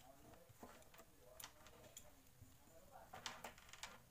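Near silence, with a few faint ticks and taps from handling a soldering iron and wire against the plastic LED bulb.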